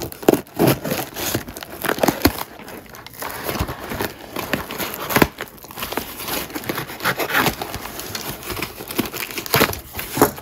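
Hands tearing open a taped cardboard parcel: cardboard, packing tape and wrapping ripping and crinkling in a string of irregular rustles and rips.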